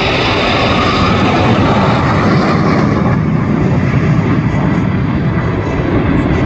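Jet noise from a formation of eight KAI T-50B Golden Eagle jets flying past: a loud, steady roar whose higher hiss dims about halfway through as they draw away.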